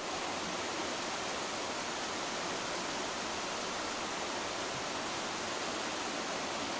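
Flowing stream water, a steady even rush.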